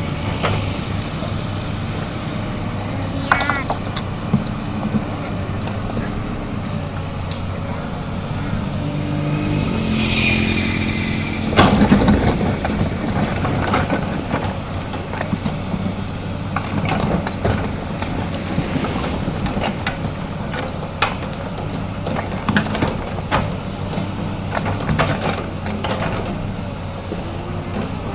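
Komatsu PC200 excavator's diesel engine running steadily, with scattered clanks and knocks. About ten seconds in, the engine note steps up in pitch, and a loud clank follows shortly after.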